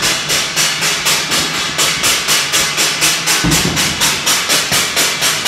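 Steel plates (thalis) beaten in a steady clattering rhythm, about four metal strikes a second, with a dull thump about three and a half seconds in.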